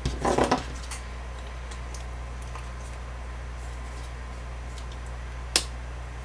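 Quadcopter parts being handled as a motor is fitted into the arm plates: a short rustle at the start, a few faint clicks, and one sharp click near the end, over a steady low hum.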